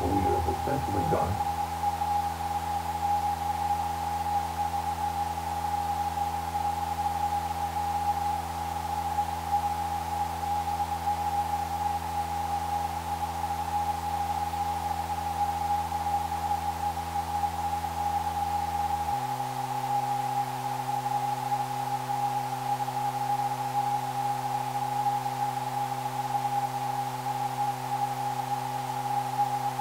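Steady electronic drone: one high held tone over a cluster of low sustained tones, with a hiss underneath. About nineteen seconds in, the low tones change abruptly to a different set.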